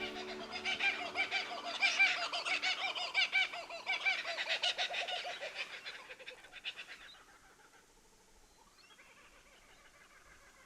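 Birds calling in quick, repeated chattering notes for about seven seconds, then falling away to a few faint calls.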